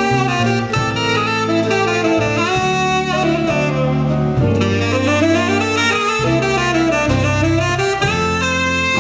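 Jazz big band playing, with a saxophone solo over the band's accompaniment and a bass line underneath; the saxophone moves through quick runs of notes.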